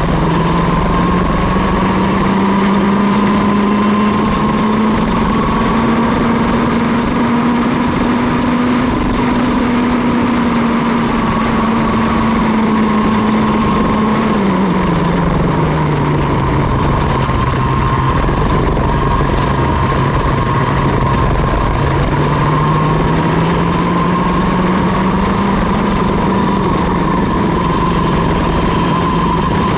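Mini ROK kart's 60cc two-stroke engine at racing speed, heard from on board. The engine note climbs slowly for the first several seconds, drops sharply about halfway through as the kart slows for a corner, stays low for several seconds, then climbs again as it accelerates out.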